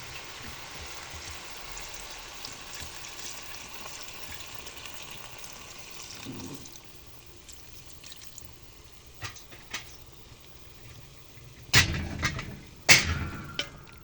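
Curry cooking in a kitchen: a steady hiss from the cooking pot for the first several seconds, then a few light clicks and two loud knocks with some ringing near the end.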